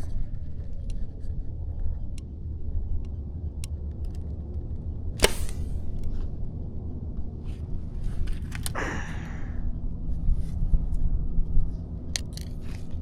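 A low steady rumble, with one sharp snap about five seconds in and a brief falling swoosh near nine seconds.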